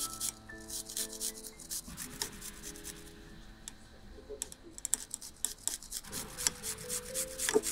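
Garlic cloves rubbed across a flat stainless-steel hand grater: quick, repeated raspy scraping strokes that ease off briefly in the middle, with background music.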